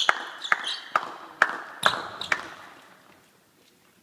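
Table tennis ball clicking in a sports hall, about six sharp clicks roughly half a second apart, each with a short ring from the hall, dying away after about two and a half seconds.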